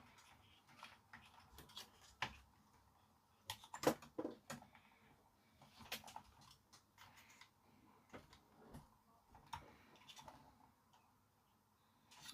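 Scattered light clicks and taps of small parts being handled on a Sansui TU-77X tuner as a piece is worked loose, faint, with the loudest knock about four seconds in.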